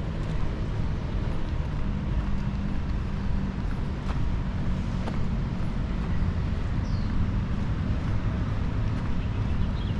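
Steady low rumble of background city traffic, with one short high chirp about seven seconds in.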